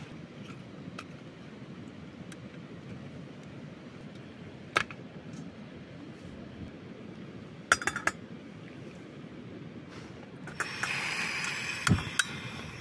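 Portable butane camping stove being set up and lit: scattered sharp clicks and clinks of its metal parts, then near the end a burst of gas hissing from the burner with a knock as a pot goes on.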